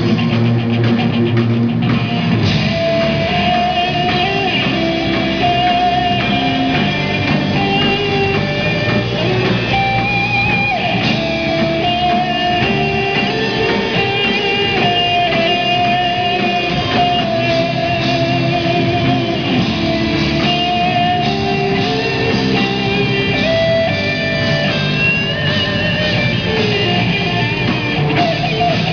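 Live rock band playing an instrumental passage with no singing: electric guitars carrying held melody lines over keyboard and drum kit, continuous and loud.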